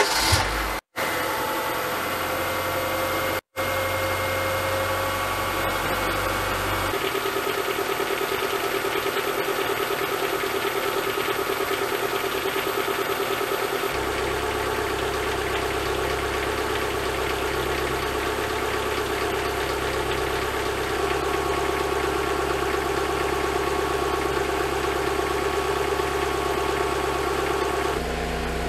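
Ford car engine idling as it warms up from cold, heard close up under the open bonnet on a 10W40 flush oil fill that can be heard moving around the engine. The idle note shifts abruptly about every seven seconds where clips of the warm-up are joined, with two brief dropouts in the first few seconds.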